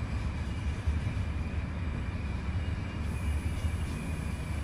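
Passenger train running through a station, heard from inside the carriage: a steady low rumble with a faint, steady high tone over it.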